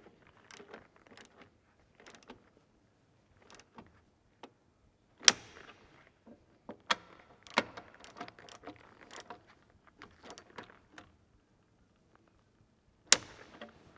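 Insulated torque tool tightening the pyro fuse bolts, with light irregular ratcheting clicks and rattles as it turns. Two sharp, loud clicks, one about five seconds in and one near the end, are typical of the tool's clutch releasing at its set torque of 9 Nm.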